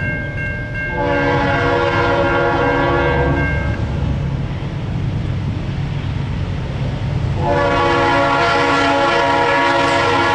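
Air horn of a Norfolk Southern ex-Conrail GE C40-8 diesel locomotive on an approaching train. The horn gives a blast of about three seconds starting about a second in, pauses, then blows again from about seven seconds on. The diesel's low rumble runs beneath.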